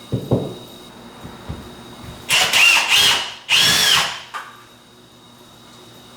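Power drill run in two short bursts of about a second each, its motor whine rising and falling with the trigger, after a couple of light knocks.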